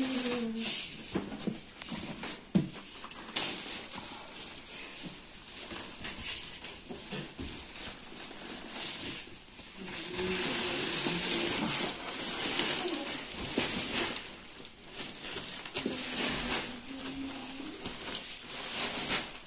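Rustling, scraping and knocking of woven sacks being shifted and handled, irregular throughout.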